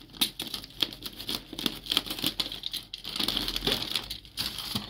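Plastic fish-transport bag and the aluminium-foil lining of the box crinkling and rustling in irregular crackles as the bag is handled and cut open with a snap-off utility knife.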